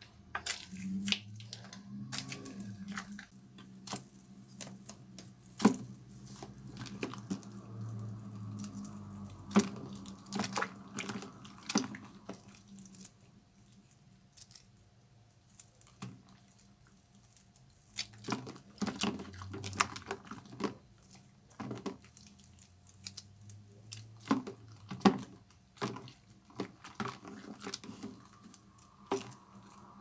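Wet, foamy soap squeezed and kneaded by hand in a plastic bowl of soapy water: squishing with many sharp crackling pops, and a few quieter seconds near the middle.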